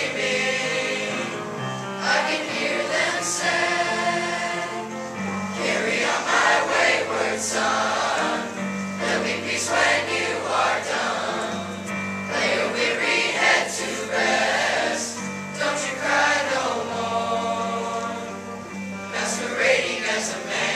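Boys' choir singing in harmony, with held notes that change every second or so.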